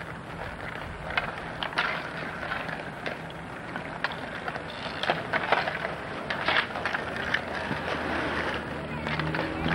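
Inline skate wheels rolling and scraping on asphalt, with sharp, scattered clacks of hockey sticks striking the puck and each other.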